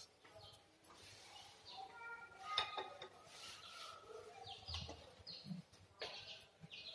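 A spoon stirring dry gram flour and spices in a bowl: faint scraping with a few light clinks of the spoon against the bowl, the clearest about two and a half seconds in.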